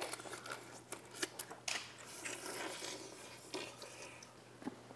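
Faint eating sounds: scattered small clicks and rustles of food being picked apart by hand and utensils touching bowls.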